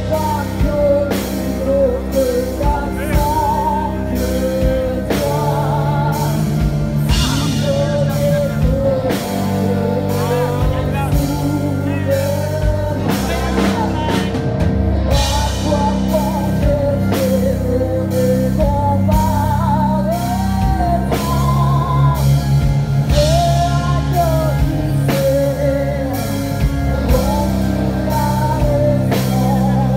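Live rock band playing, with a woman singing the lead in French over drums, electric guitar and bass. She holds long, wavering notes.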